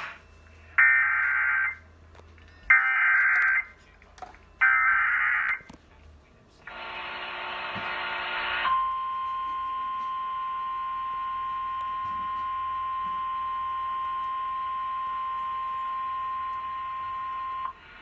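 Emergency Alert System activation sounding through a TV speaker: three short bursts of screechy SAME header data, then a harsher buzzing tone for about two seconds, then a single steady alert tone for about nine seconds that cuts off abruptly.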